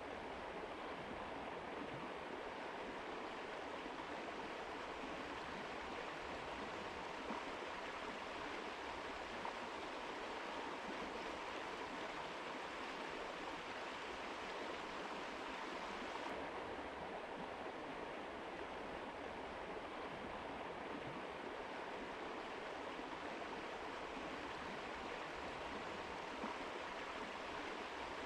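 Mountain river flowing: a steady, even rush of water that never lets up, its upper hiss shifting slightly a little past halfway.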